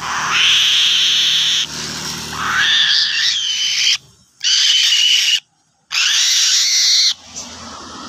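Young eagle giving about four long, shrill screaming calls in a row, some wavering and sliding up in pitch, with short gaps between them: a hungry chick's food-begging calls as it is fed.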